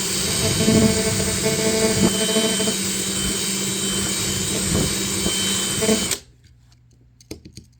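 Power drill with a 1/8 bit drilling out a rivet on a die-cast toy car's metal base. It runs steadily and stops suddenly about six seconds in, followed by a few light clicks.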